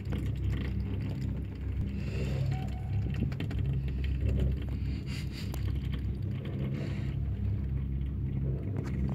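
Chairlift running, heard from the moving chair: a steady low rumble with a few light ticks and rattles.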